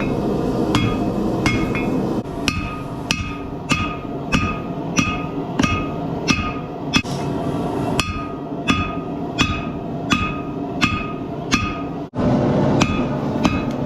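Hand hammer striking hot steel on an anvil while forging a Damascus knife billet, about one and a half blows a second. Each blow rings with a clear metallic tone over a steady low roar.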